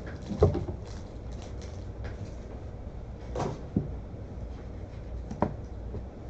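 A few short knocks of objects being handled and set down on a desk, the loudest about half a second in, over a steady low hum.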